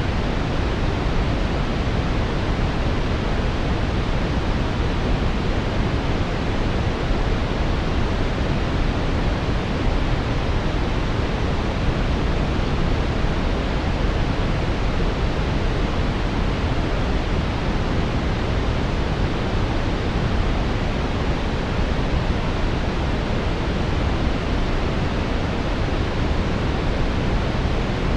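Synthetic brown noise: a steady, even rushing hiss weighted toward the deep low end, unchanging throughout.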